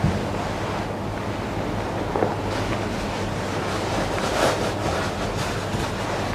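Steady hiss with a low hum from the room and microphone, broken by a few brief rustles about two and four and a half seconds in.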